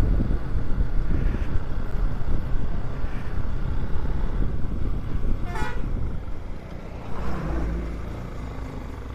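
Motorcycle on the move: engine running under a steady rumble of wind and road noise on the microphone. A single short, high toot sounds about five and a half seconds in.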